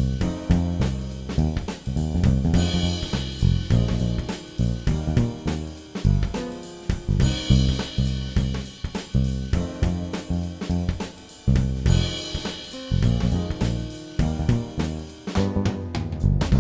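Music with a drum kit and a moving bass line, playing at a steady beat.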